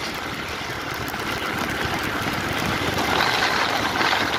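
Motorbike riding along a rain-wet road: engine running under a steady hiss of tyres on the wet surface, growing a little louder about three seconds in.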